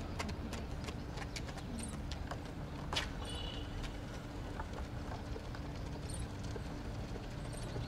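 Running footsteps of a pack of athletes on a synthetic running track, a quick irregular series of light slaps, thickest in the first few seconds, with one sharper click about three seconds in, over steady low background noise.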